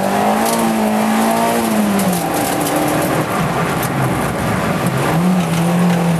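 Peugeot 205 1.6 GTI's four-cylinder engine, heard from inside the cabin at speed on a rally stage. The engine note holds high for about two seconds, falls away as the throttle comes off, and picks back up about five seconds in, over steady tyre and road noise on wet tarmac.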